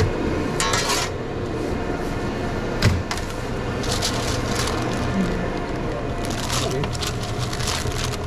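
Sandwich-prep handling noises at a sandwich-shop counter: rustling and scattered clicks and knocks, with one sharp knock about three seconds in, over a steady low hum of restaurant equipment.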